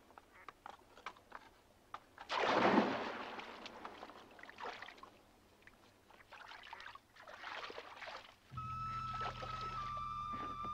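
A person plunges into a river pool with a loud splash about two seconds in, followed by smaller splashes of swimming. Soft sustained music tones with a low drone come in near the end.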